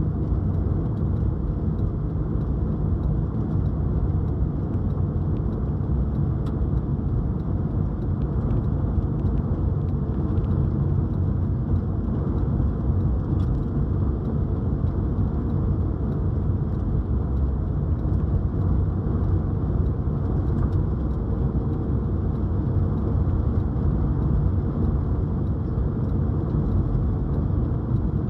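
Car driving along a road: a steady drone of engine and tyres.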